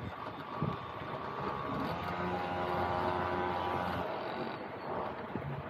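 A steady, low-pitched motor hum fades in about one and a half seconds in and cuts off sharply about four seconds in, over a continuous rushing noise.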